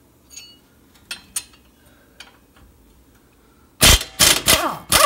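Impact wrench hammering in several short bursts near the end, backing out the 18 mm pinch bolt that holds the lower ball joint in the steering knuckle; before that, only a few faint clicks.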